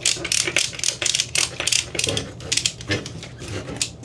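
Retractable ratchet strap's ratchet mechanism clicking as it is worked: an irregular run of sharp clicks.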